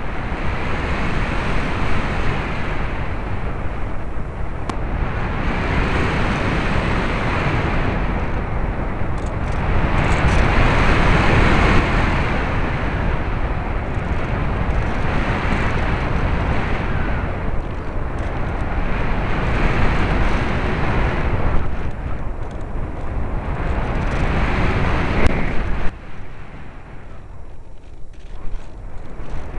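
Airflow rushing over the microphone of a camcorder carried aloft, a loud, dense noise without any clear engine tone. It swells and eases every four to five seconds and drops off suddenly near the end.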